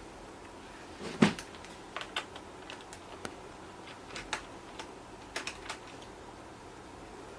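Small clicks and taps of a screwdriver and screws against a laptop's plastic bottom case as its screws are undone. There is one louder knock about a second in, then a scatter of lighter clicks.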